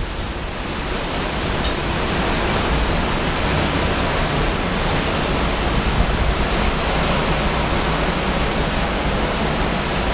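Tropical-storm-force wind blowing steadily through trees with driving rain, a dense unbroken rush of noise, with low rumbling from wind buffeting the microphone. It grows a little louder about two seconds in.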